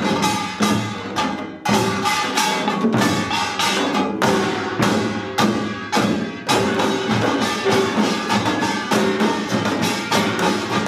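Korean pungmul percussion ensemble playing a fast pangut rhythm: barrel drums, hourglass drums and small hand drums struck together over ringing gongs. The rhythm runs steadily, with a few brief breaks each followed by a hard accented stroke.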